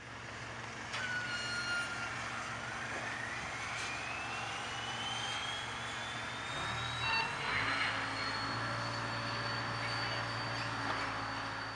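A high mechanical whine rising slowly in pitch over several seconds and then holding steady, over a steady low hum that shifts about two-thirds of the way through.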